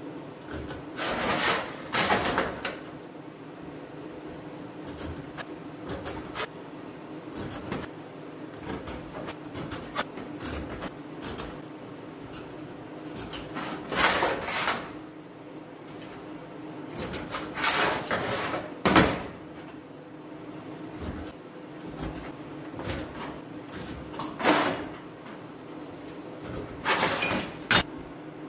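Steel plates being slid, stacked and set down on a steel welding table: several short scrapes and clinks, one sharper knock near the middle, over a steady background hum.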